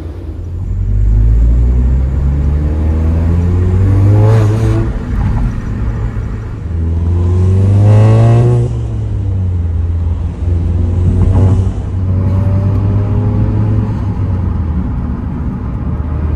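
2015 Mk7 VW GTI's turbocharged four-cylinder, fitted with a catless 3-inch downpipe and the stock cat-back exhaust, accelerating under normal driving: the engine note climbs in pitch and falls back three times, then holds a steady drone. It has a fairly stock-sounding tone, and there are no pops or bangs when the throttle is released, as the car is in normal drive mode.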